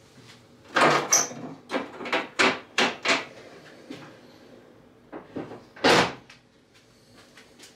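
A run of sharp metallic knocks and clanks under the raised bonnet of an Austin Metro, then the bonnet brought down and shut with one loud thump about six seconds in.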